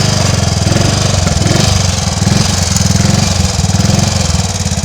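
Triumph Tiger Cub's small single-cylinder four-stroke engine running, its exhaust beat uneven at first and settling into a steady, even idle near the end. The engine has an intermittent misfire, which the owner puts down to dirt in the carburettor.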